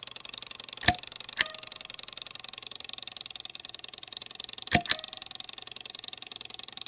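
Wind-up portable gramophone running: a steady hiss with a few sharp clicks, a pair about a second in and another pair near five seconds.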